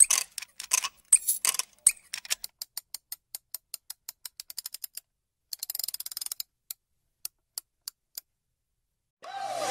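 A run of sharp mechanical clicks and ticks, dense at first, then a quick even ticking, a short rattle about halfway through, and a few spaced ticks that stop a couple of seconds before the end.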